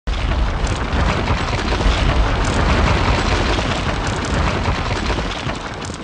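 Intro sound effect of a wall cracking and breaking apart: a loud, dense rumbling crash of crumbling masonry and debris that starts abruptly and holds for several seconds, easing slightly near the end.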